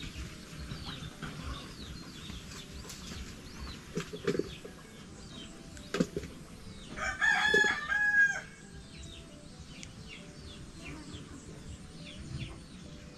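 A rooster crows once, about seven seconds in, over faint bird chirping.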